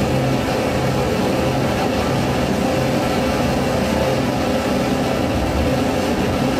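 Dense, steady electronic noise drone played live on tabletop electronics. A low hum cuts in and out every second or so under a steady higher tone.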